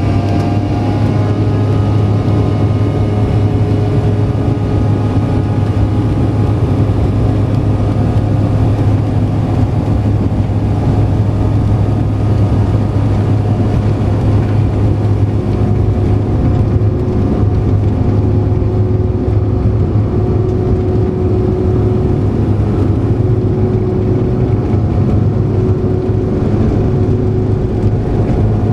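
Cabin noise in a Bombardier CRJ900 in flight: a steady, loud drone from its rear-mounted General Electric CF34 turbofans, with a deep hum and a few whining engine tones that dip slightly in pitch at the start and then hold level.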